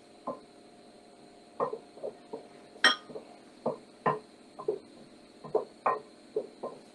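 A spoon tapping and clinking against a glass mixing bowl of batter while it is stirred: about fifteen short, irregular knocks.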